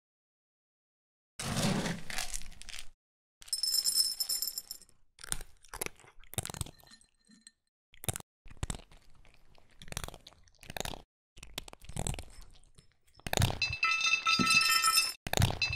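A string of recorded kitchen sounds: after a second or so of silence come crunches, cracks and short knocks at irregular intervals, then, near the end, a flurry of ringing clinks of glass or dishware.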